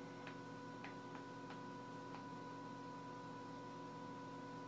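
Faint steady electrical hum with a few light ticks in the first two seconds.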